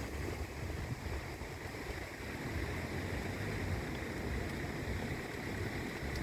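Large bonfire burning, heard as a low, uneven rumble with a faint hiss and a few faint crackles, mixed with wind buffeting the microphone.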